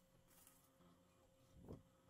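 Near silence with a faint steady hum and one soft, low thump near the end.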